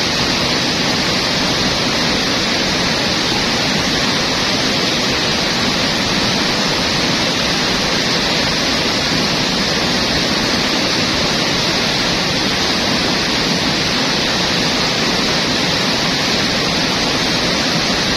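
Steady rush of a fast jungle river's rapids, an even loud hiss with no let-up.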